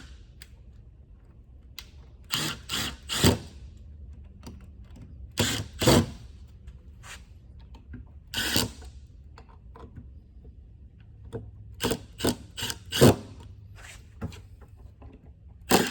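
Hand tools and wiring being worked at electrical switches: irregular clicks, knocks and short scrapes coming in clusters, over a faint low hum.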